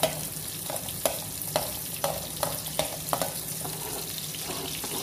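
Red onion and garlic sizzling in hot oil in a stainless steel pan while a metal utensil scrapes and stirs them, about two strokes a second, the strokes thinning out toward the end.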